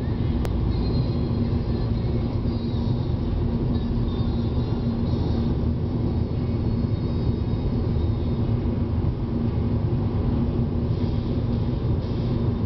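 Steady low rumble of a car driving at road speed, heard from inside the cabin: engine and tyre noise with a constant low hum.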